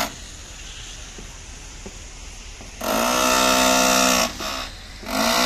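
A horn blown twice: a long steady blast about three seconds in, then a shorter one near the end.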